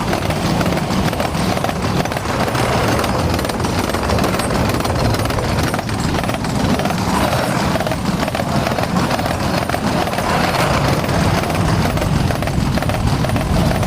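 Ghost train sound effect: a steady, dense clattering rumble.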